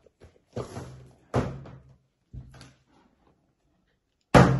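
A series of four sudden thuds, each dying away quickly, the last the loudest, near the end.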